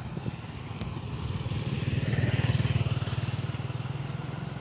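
Engine of a passing vehicle, a steady drone that grows louder to a peak a little past halfway, then fades.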